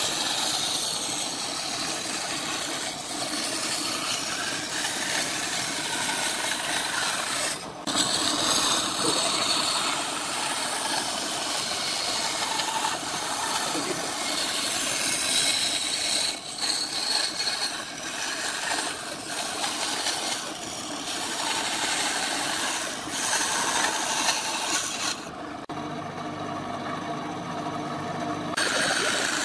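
Benchtop bandsaw cutting a circle out of a pine board: a steady hiss of the blade through the wood, broken briefly about eight seconds in. Near the end the cutting sound gives way to a lower, steadier hum.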